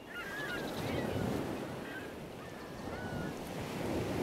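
Ocean surf washing steadily, with a few short bird calls over it, the first near the start.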